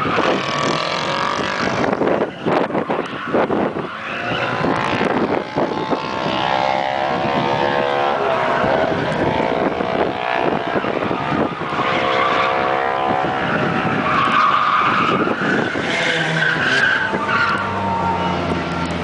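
Nissan 240SX with a turbocharged KA24 engine drifting: the engine revs rise and fall under the sliding tires' squeal, which is strongest near the start and again about three-quarters of the way through.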